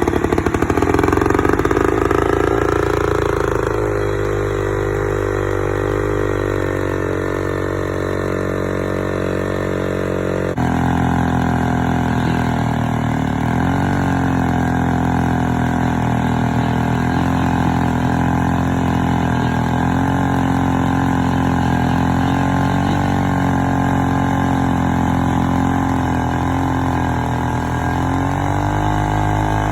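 1940 Stihl BD two-man chainsaw engine running, its note falling and settling over the first few seconds. About ten seconds in the sound changes abruptly and gets a little louder, and from then on the pitch wavers up and down.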